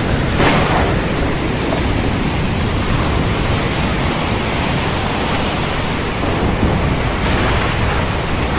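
Steady heavy rain hiss over a continuous low thunder rumble, with a brief sharper surge of thunder about half a second in.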